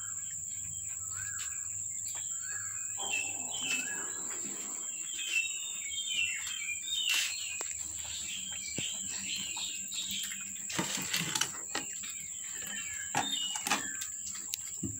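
Small birds chirping and twittering in short repeated calls, busiest in the middle, over a steady high-pitched whine. A few sharp clicks come about two-thirds of the way through.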